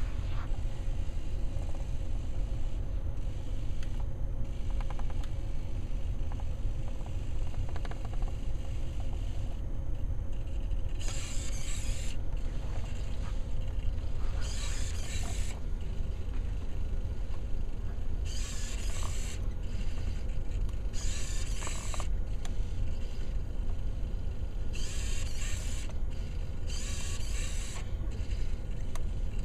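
Hobby servo motors of a small robot whirring in short bursts of about a second each, with pauses between. These are the wheel servos, modified for continuous rotation, moving the robot in short steps.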